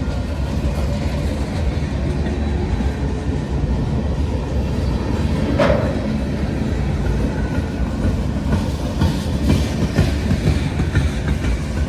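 Long freight train's cars rolling past at low speed as it picks up speed, a steady heavy rumble with wheels clacking over rail joints. One brief sharp sound stands out about halfway through.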